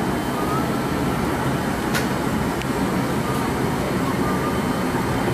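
Steady roar of a gas-fired glory hole burner and its combustion-air blower in a glassblowing studio, while a piece on a blowpipe is reheated in the glory hole.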